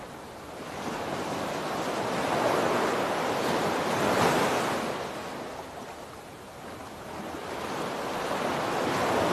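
Ocean waves washing, the rush swelling and easing twice.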